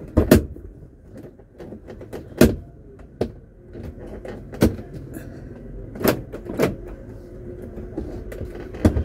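A string of sharp knocks and clicks inside a parked car, about seven of them spread unevenly, over a steady low rumble.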